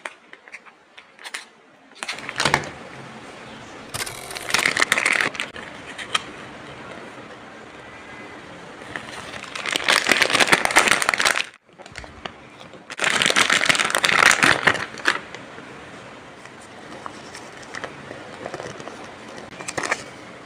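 A person snoring: three long snores a few seconds apart, over a steady low background hum.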